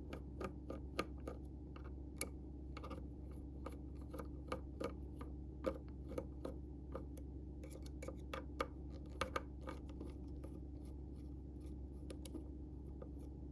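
Small irregular clicks and ticks of a Torx screwdriver turning out the small screws of a folding knife's pocket clip, with the metal clip and screws being handled.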